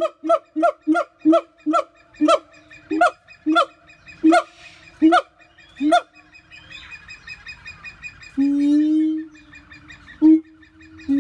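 Siamang calling: a run of short, loud, pitched hoots that come about three a second and slow down over the first six seconds. After a quieter stretch, a longer held call follows about eight seconds in, and more short calls come near the end.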